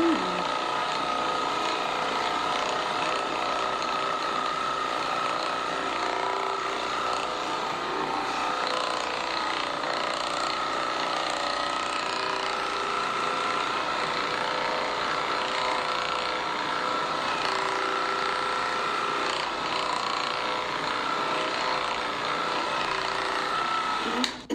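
Handheld electric percussion massager running steadily against a patient's back, a continuous motor whine, cutting off just before the end.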